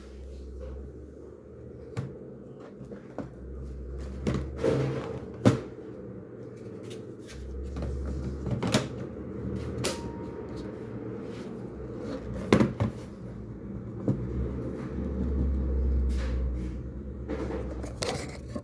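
Scattered sharp clicks and knocks of a Dell Inspiron 3520 laptop's parts being handled and worked open by hand, with a low rumble coming and going underneath.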